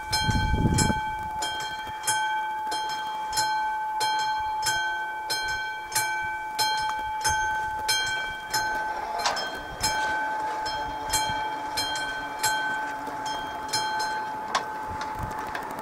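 Railway level-crossing warning bell ringing steadily, about one and a half strokes a second, each stroke left ringing. There is a brief low rumble at the start and a single sharp knock near the end.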